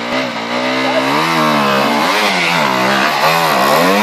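Enduro motorcycle engine revving hard in repeated bursts, its pitch rising and falling several times, as the bike struggles for grip climbing a deep muddy rut.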